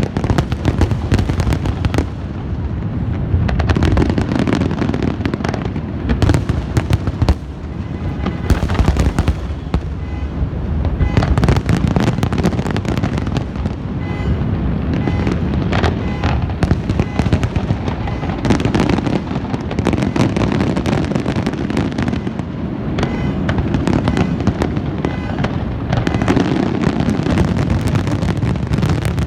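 Fireworks going off without pause: a dense run of crackles and bangs over a steady low rumble.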